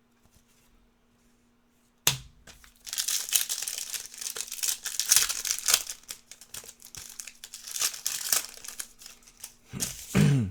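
Plastic wrapper of a trading-card pack being torn open and crinkled, starting with a sharp rip about two seconds in and going on in stops and starts, with a short low sound near the end.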